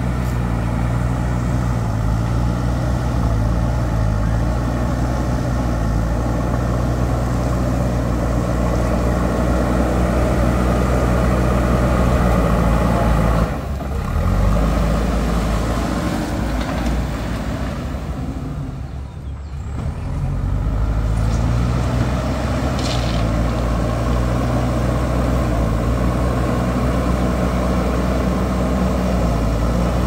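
JCB backhoe loader's diesel engine running under load as its front bucket pushes and levels gravel, the engine note dropping off twice near the middle before picking up again.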